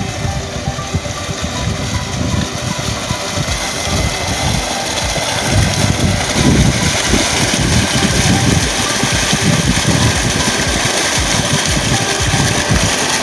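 Water gushing from the outlet pipe of a trolley-mounted solar pump into a flooded paddy field: a steady rushing that grows louder about halfway through.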